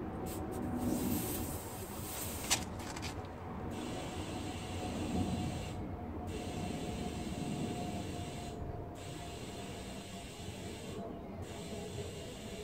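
Compressed air hissing through a tyre inflator gun on a van's tyre valve, with a sharp click about two and a half seconds in and a few short breaks in the hiss later on.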